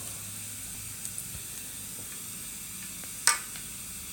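Steady low hiss with a single sharp click about three seconds in, from small parts being handled on the workbench.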